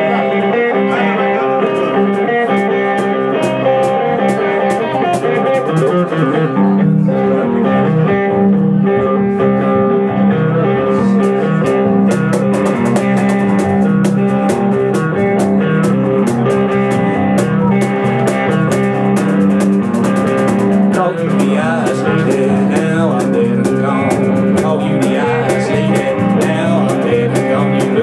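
A live band playing an instrumental passage, with guitar to the fore. The notes are sustained and change pitch as the music goes, over a running pattern of sharp ticks.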